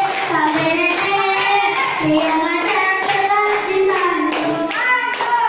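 Young girls' voices singing a melody, with hands clapping in time.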